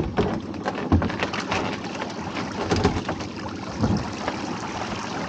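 Lobster pot being hauled up out of the sea over a dinghy's side: water splashing and streaming off the netting, with irregular knocks and rattles as the pot is handled against the boat.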